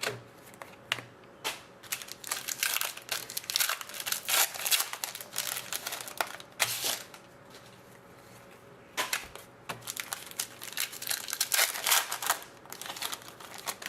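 Trading-card pack wrappers crinkling and tearing, with cards being handled: quick clicks and rustling in two spells, with a pause of about two seconds around the middle.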